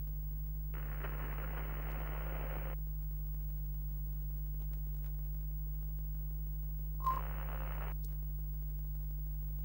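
A steady low electrical hum, joined twice by a burst of hiss, the first lasting about two seconds, the second about a second with a short click at its start.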